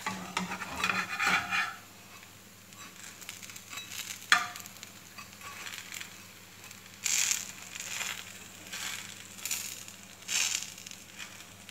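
Flat spatula scraping and sliding across a nonstick pan as a dosa is lifted and folded over its filling, with frying sizzle underneath. There are irregular scrapes, and one sharp tap of the spatula about four seconds in.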